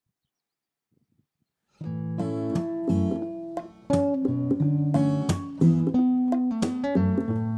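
Near silence, then about two seconds in an acoustic guitar starts playing strummed and plucked chords in a steady rhythm, with a brief drop near the middle.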